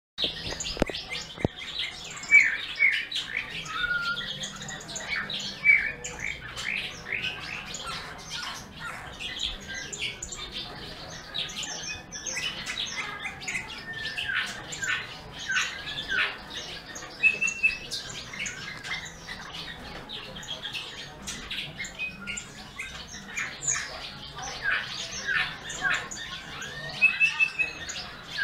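Small songbirds chirping and twittering busily: a dense run of quick short chirps, with a few brief clear whistles mixed in.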